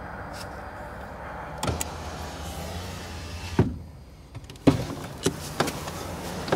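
Pickup truck engine idling, heard from inside the cab as a steady low hum, with several sharp knocks and clunks of handling inside the cab. The loudest comes about halfway through, and a quick run of them near the end.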